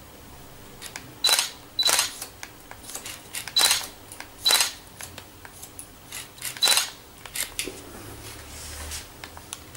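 Hairdressing scissors cutting wet hair: five crisp snips with a brief metallic ring, and fainter clicks of the blades and comb between them.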